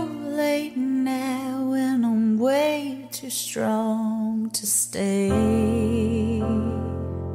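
A pop song with a woman singing long, wavering held notes over a light backing; about five seconds in, a fuller accompaniment with bass and sustained chords comes in.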